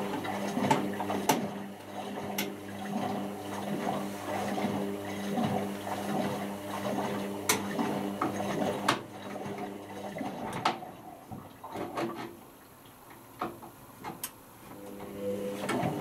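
Indesit IWC6165 washing machine tumbling its wash: a steady motor hum with water sloshing in the drum and occasional clicks. The drum stops about 11 seconds in, pauses with a few light clicks, and starts turning again near the end.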